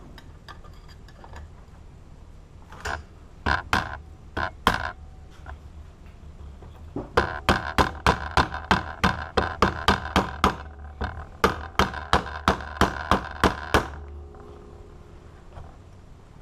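Hammer blows on metal: a few single strikes, then a quick, even run of about three a second for some seven seconds, each ringing briefly. Typical of knocking the rivets out of a padlock body cut in half.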